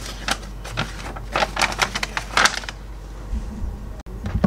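Quick, irregular run of light clicks, like typing on a computer keyboard, for about two and a half seconds, then a few soft low knocks near the end.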